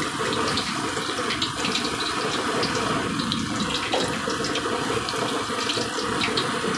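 Slime deep-frying in hot oil in a kadai: the oil sizzles steadily, with many small crackling pops.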